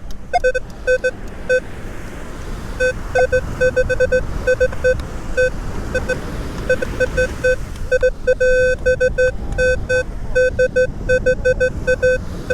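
Metal detector giving many short beeps of one steady low tone in an uneven run, a few held slightly longer, as the coil passes over a buried metal target, over a steady background rush.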